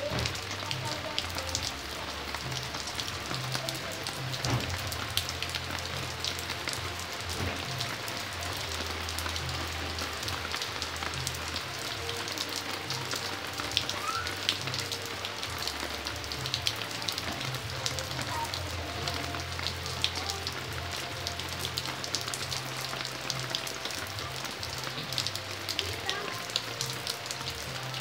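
Steady rain falling on stone paving and broad plant leaves: a dense patter of many small drop ticks.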